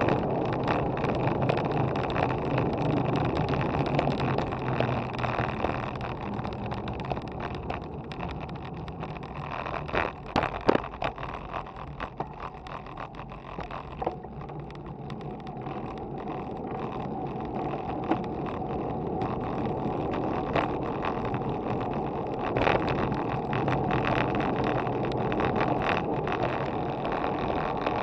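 Wind on the microphone and road noise from a road bike riding along, with a steady rushing that drops quieter about ten seconds in as the bike slows for a turn, then builds again. A few sharp knocks come at about ten and eleven seconds in.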